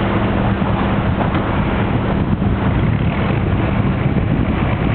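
A boat's engine running steadily under way, a constant low hum under a wash of water and wind noise, with wind buffeting the microphone.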